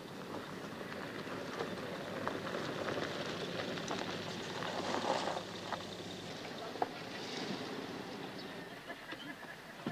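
An Opel saloon car driving along a gravel track: tyres crunching over loose stones, with small clicks of gravel, over a running engine. It is loudest around the middle and eases off toward the end.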